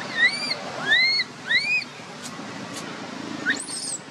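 Baby macaque giving distress calls: three arched cries in quick succession, each rising then falling, then a higher, sharper squeal near the end. These are the cries of a baby taken from its mother.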